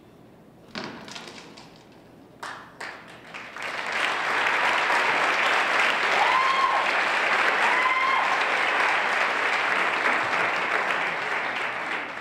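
Theatre audience applauding at the end of a dance piece: a single thud about a second in, then scattered claps that swell into steady, loud applause from about four seconds in, with two short whoops from the crowd in the middle.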